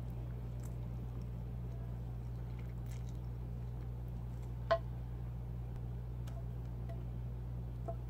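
A person chewing a mouthful of pasta, with faint wet mouth clicks, over a steady low hum. A single sharp click sounds a little past halfway.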